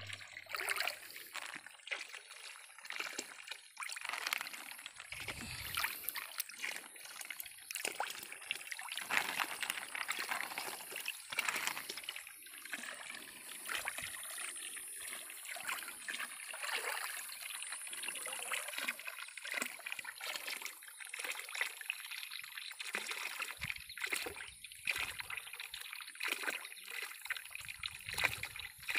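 Water trickling and sloshing, with many small irregular splashes.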